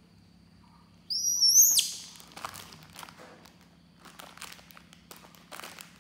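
A baby monkey gives one shrill, high-pitched squeal about a second in, lasting under a second and dropping off sharply at the end. Scattered rustling and light clicks follow.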